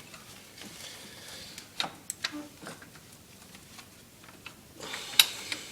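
Scattered sharp metallic clicks and knocks of bolts and hand tools being handled and fitted into an ATV swing arm, a few apart, with the loudest near the end.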